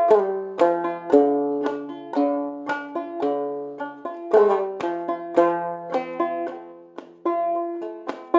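Clawhammer banjo in open G tuning playing the tune with a steady rhythm of down-strikes, brushes and hammer-ons, plucked notes ringing over a sustained lower drone.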